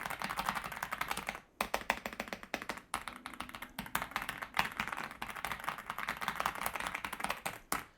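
Fast typing on an Aula F75 mechanical keyboard with its stock hot-swappable switches: a quick run of key presses with a thump like blue switches. The typing pauses briefly about one and a half seconds in, about three seconds in, and again near the end.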